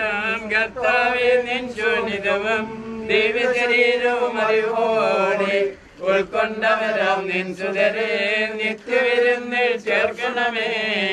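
A Malayalam funeral hymn sung slowly, with a steady held note underneath. There is a short break in the singing near the middle.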